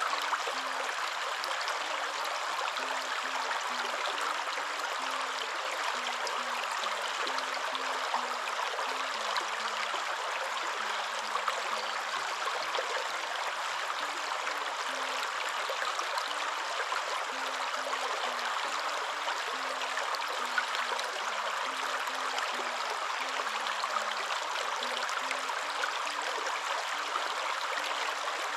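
Waterfall rushing as a steady, even white noise. Faint low notes stepping up and down sit underneath.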